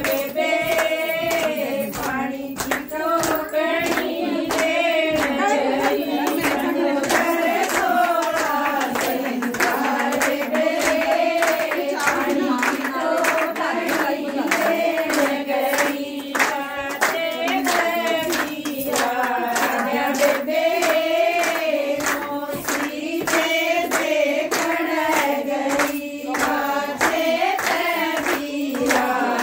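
A group of women singing a Haryanvi folk song together, with steady rhythmic hand clapping keeping the beat.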